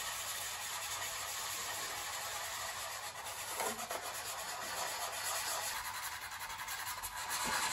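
Hand wet-sanding a plastic model-ship hull with 1200-grit paper on a small pad, a steady fine rubbing. It is the final smoothing pass over the glued hull seam before primer.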